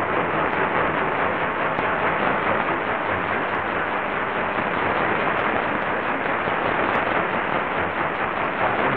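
Steady hiss and static from a Qodosen SR-286 portable radio tuned to 585 kHz on the medium-wave band, with a weak, distant night-time signal lost in the noise.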